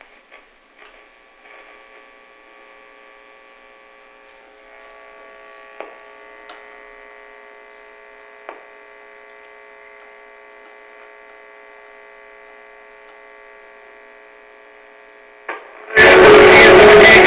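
1952 Philips valve radio humming steadily through its loudspeaker while its knobs and push-button keys are worked, with a few sharp clicks. About sixteen seconds in, the set suddenly comes on loud as a station plays through the speaker.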